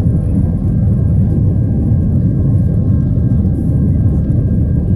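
Cabin noise inside an Airbus A320 climbing out after takeoff: a steady low rumble of engines and rushing air, with a faint steady whine on top.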